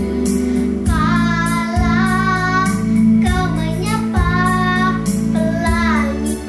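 A young girl singing over a backing track with a steady beat, in sung phrases that start about a second in.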